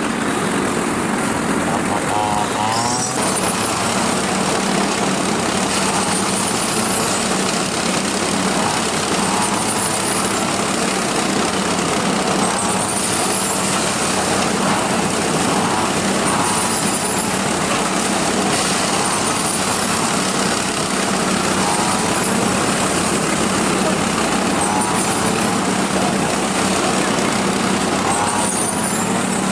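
A small engine running steadily with a constant hum, without letting up.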